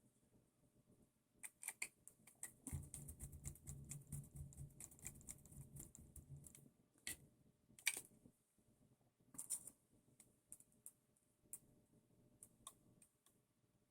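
Faint, scattered clicks and light rattling of small parts and screws being handled while an RC buggy is reassembled. A denser run of rattling comes from about three to seven seconds in, followed by a few sharper clicks.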